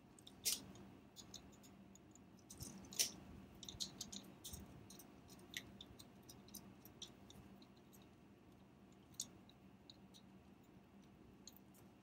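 Faint, scattered little clicks and ticks of needle-nose pliers on small nuts and a clear acrylic camera case as the nuts are snugged up, the sharpest about half a second and three seconds in, with a run of small clicks around three to four seconds.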